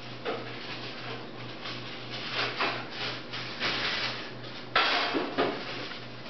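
A run of short scraping and rustling noises, the loudest about five seconds in, over a steady low ticking.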